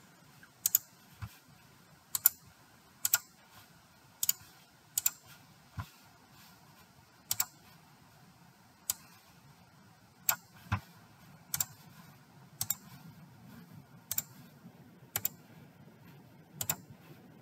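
Computer mouse clicking sparsely, one sharp click about every second, some in quick pairs, while software menus are worked.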